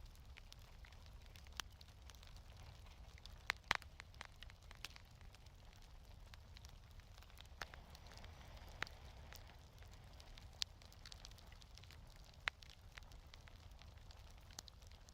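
Wood fire crackling softly, with scattered sharp pops, the loudest pair a little over three seconds in, over a low steady rumble.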